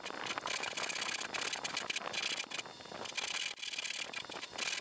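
A backsaw cutting dovetail tails by hand in two softwood boards clamped together, with steady back-and-forth rasping strokes.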